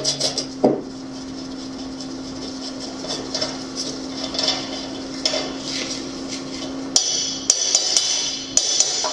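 Hammer strikes on metal parts, a few near the start and then roughly two a second from near the end, with a steady hum in between and music underneath.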